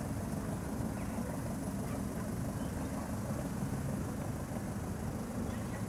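Steady low rumble of distant vehicle engines, with no single sound standing out.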